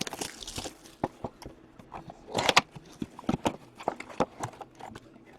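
Hands handling trading cards and card packs on a table: scattered light taps and clicks, with a brief crinkly rustle about two and a half seconds in.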